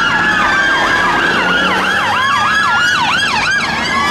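Several police sirens sounding at once from a convoy of British police cars. A slow rising-and-falling wail overlaps with quicker yelp sweeps.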